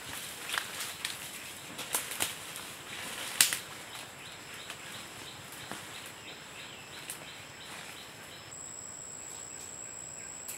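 Dry leaves and twigs crackling and snapping under someone moving through forest undergrowth, a scatter of sharp snaps in the first few seconds with the loudest about three and a half seconds in. A steady high insect drone comes in near the end.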